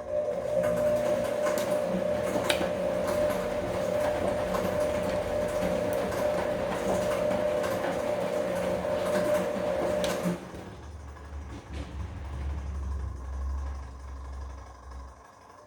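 Bosch Komfort-Klasse washing machine running its wash cycle: the motor turns the drum with a steady whine and the laundry churns. About ten seconds in, the motor stops, leaving a quieter low rumble.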